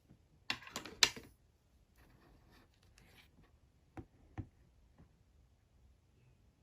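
Slime being handled and pressed, with a quick cluster of soft clicks and crackles about half a second in and two sharper ticks around four seconds in. The rest is faint.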